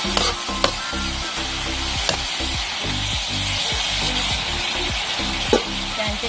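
Pork and julienned ginger sizzling as they are stir-fried in a metal pan, with a few sharp clicks and scrapes of the spatula against the pan.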